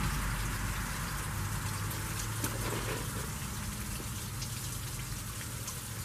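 Steady hiss of water dripping and trickling at a storm-drain culvert outlet into a pool, with a few faint ticks. A low, steady hum runs underneath.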